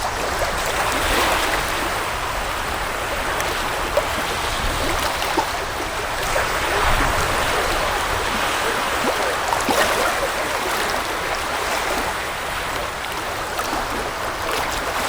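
Black Sea waves washing onto the beach: a continuous surf hiss that swells and eases every few seconds, with a low rumble underneath.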